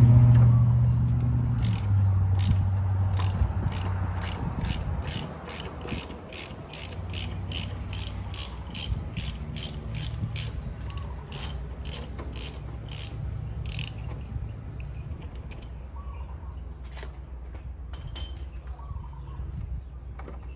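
Hand ratchet wrench clicking steadily, about two clicks a second for some twelve seconds, then a few scattered clicks, as fasteners are worked on the car. A low hum at the start fades away over the first few seconds.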